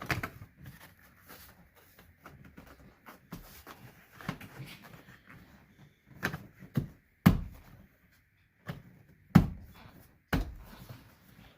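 Knocks and clicks of car dashboard trim being handled and pushed while wiring is worked through it. Light clicking at first, then several sharp knocks in the second half, the loudest about 7 and 9 seconds in.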